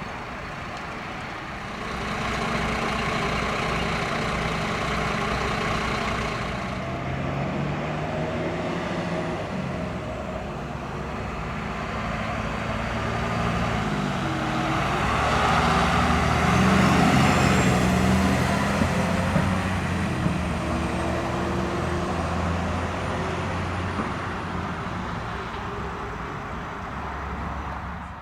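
Heavy fire engines driving by, their diesel engines running with the pitch rising and falling through gear changes. The sound builds to its loudest about two-thirds of the way through as a truck comes close.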